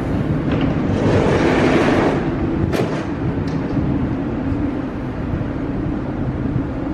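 Metro train standing at an underground platform with its doors open, its on-board equipment giving a steady hum. A swell of louder noise comes about a second in, and a sharp click just before three seconds.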